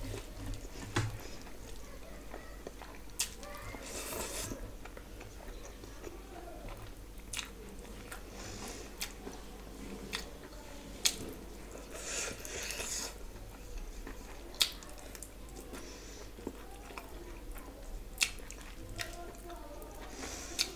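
Close-miked eating by hand: chewing rice and curry with wet mouth sounds and sharp lip-smack clicks every second or two, and the soft squish of fingers mixing rice.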